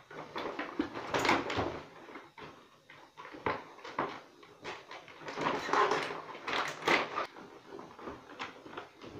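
Plastic toy packaging being handled as action figures are pressed back into their box tray: irregular clicks, knocks and crinkles, in two busier spells about a second in and around the six-second mark.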